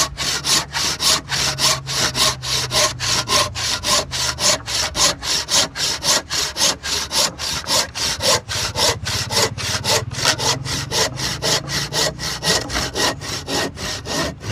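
Freshly file-sharpened crosscut hand saw cutting through a square wooden post. Fast, even strokes come at about four a second, the teeth rasping through the wood.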